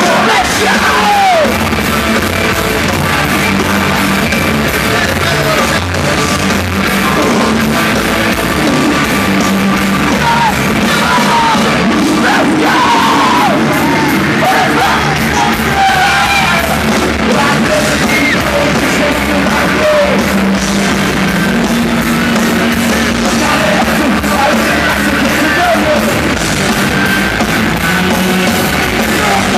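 Live hard rock band playing loud, with heavy distorted guitars, drums and shouted singing.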